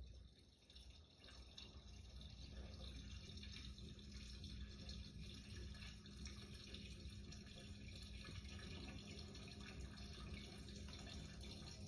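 Kitchen faucet running a thin, steady stream of water into a stainless steel sink, faint and even.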